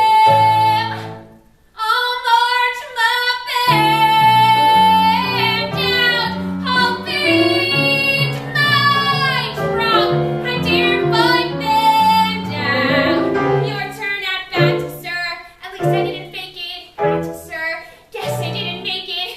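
A female voice singing a Broadway show tune over instrumental accompaniment, with long held notes and vibrato. The singing breaks off briefly about a second in, then resumes.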